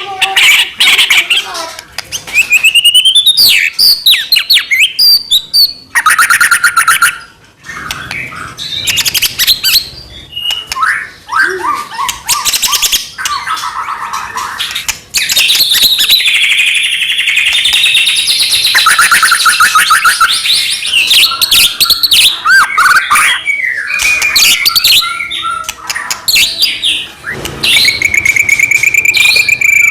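White-rumped shama (murai batu) singing a long, loud, varied song of clear whistles, rapid trills and chattering phrases, with short breaks between phrases. This is the bird in full 'gacor' song, the kind used to provoke other shamas into singing.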